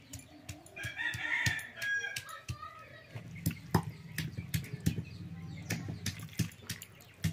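A rooster crows once, starting about a second in and lasting about a second and a half. Around it are scattered sharp clicks and knocks from a stone pestle on a grinding slab and from raw goat meat being handled in steel dishes.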